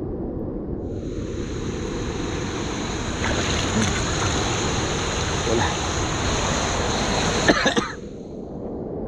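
Rushing, splashing water at a river weir, with a louder hiss of water for about seven seconds that drops back near the end, just after a few sharp knocks.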